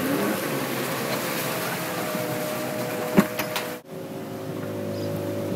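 Motorized canoe's engine running steadily over water and wind noise, with a sharp knock about three seconds in and the sound dropping out for an instant just after.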